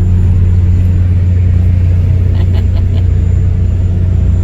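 Loud, steady low engine rumble during a car ferry crossing, a deep hum that holds without change. A few faint, short high sounds come just past halfway.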